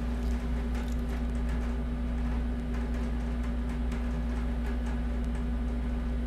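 Steady background hum with a constant low tone, with faint scattered ticks over it.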